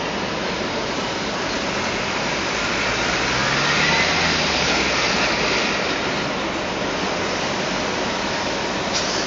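New Flyer D60HF articulated city bus's diesel engine and cooling fan running close by: a steady, hissing drone that swells a little a few seconds in.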